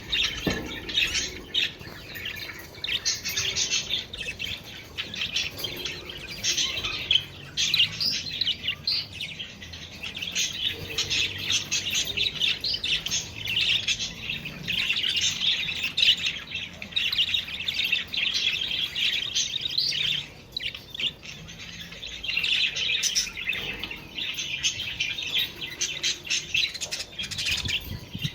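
Budgerigars chattering and chirping, many quick calls overlapping without pause, easing briefly a little over two-thirds of the way in.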